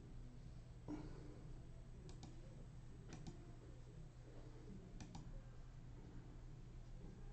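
Near silence: a low steady hum with a few faint clicks, one about a second in and then three quick pairs.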